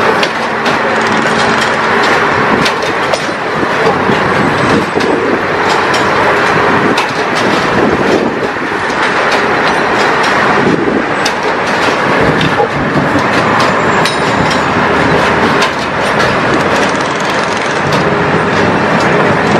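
Track-laying machine running as it creeps along laying concrete sleepers and steel rail: a steady, loud mechanical running noise with frequent metallic clanks and clicks throughout.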